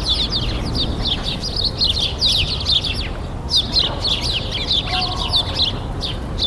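Many small birds chirping rapidly and continuously over a steady, low rumble of distant city traffic.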